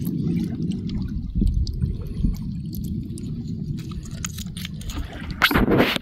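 Wet tidal mud squelching, with small shells and stones clicking, as a hand digs through a mudflat. A low rumble runs underneath, and there is a louder squelching scrape near the end.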